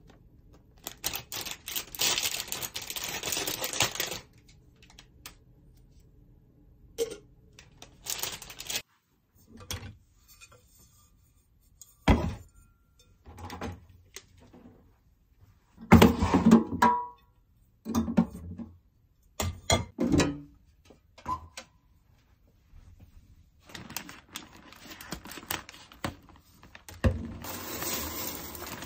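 A run of household handling sounds: plastic packaging rustling, then separate knocks and clunks, a few with a short ring, as a rice cooker's inner pot is handled. In the last few seconds, dry rice pours with a steady hiss from a bag into a rice bin.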